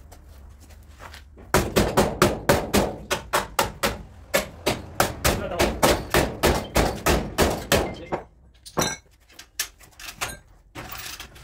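Hammer blows on car body sheet metal: a fast, even run of about four strikes a second starting a second and a half in, then a few slower, spaced blows near the end.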